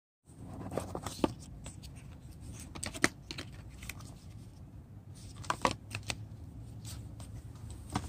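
Cardboard gift box being handled and opened: scattered light clicks, taps and rustles from the lid and paper insert, in small clusters, over a low steady background rumble.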